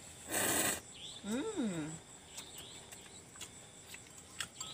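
Crickets chirping steadily in the night background. About half a second in comes a short, loud breathy hiss, and after it a brief wordless vocal sound that rises and falls.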